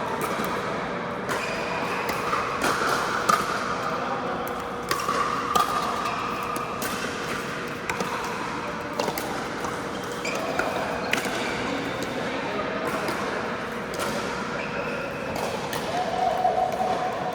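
Pickleball paddles popping against the ball and the ball bouncing on an indoor court: sharp hits at irregular intervals over the steady background din of the hall.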